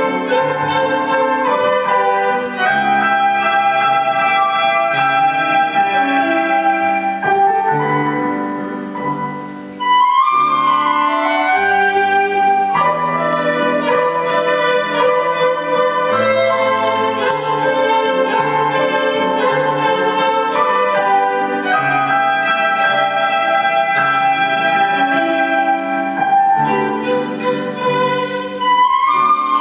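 Flute, violin and digital piano playing classical chamber music together. The phrase tapers off about eight seconds in, and the three come back in together at about ten seconds.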